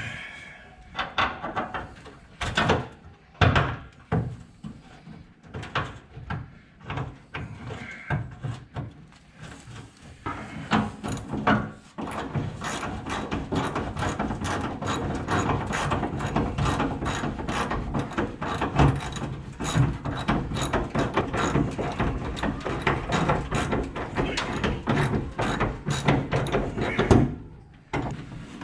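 Scattered knocks and clanks of metal parts being handled, then, from about twelve seconds in, a hand ratchet clicking fast and steadily as a bolt is run in. The clicking stops just before the end.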